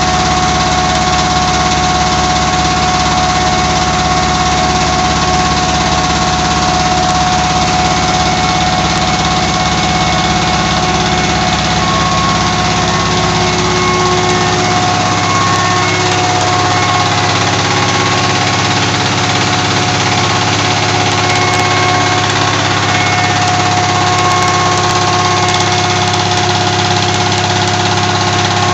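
A 25 HP Petter-type diesel engine running steadily at full speed, belt-driving a small atta chakki flour mill. It gives a fast, even engine beat under a steady high whine. The deep part of the engine beat eases about halfway through while the rest holds steady.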